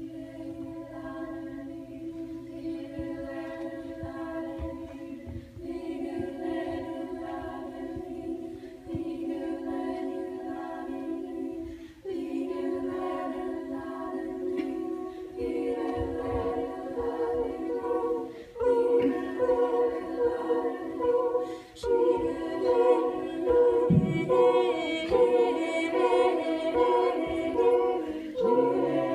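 A group of voices singing a cappella in an improvised circle-singing session, led by hand gestures. A low held drone runs throughout, and new vocal layers enter every few seconds, so the sound grows louder and fuller toward the end.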